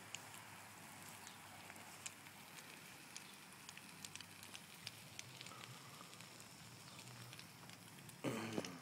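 Burning couch crackling, with faint sharp pops scattered throughout over a steady low hiss of flames. A brief louder sound comes near the end.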